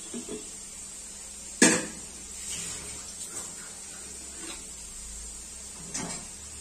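Kitchen clatter of metal utensils and dishes: one loud sharp knock with a brief ring about one and a half seconds in, a few light taps, and a softer knock near the end, over a faint steady hum.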